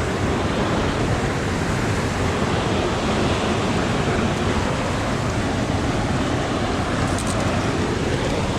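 Steady roar of cascading water from a waterfall.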